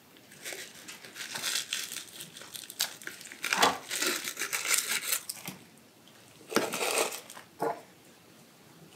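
Plastic packaging crinkling and rustling as raw whole chickens are lifted and handled on it: a run of irregular rustles for about five seconds, then two shorter crinkles a little later.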